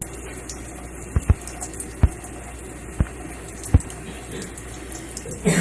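Water running from a kitchen tap over a colander in a sink, a steady rushing splash, with a few dull knocks along the way.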